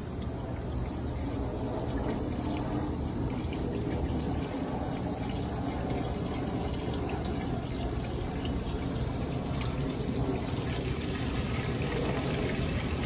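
Water rushing and churning steadily in a homemade backyard whirlpool, a continuous noise that does not let up.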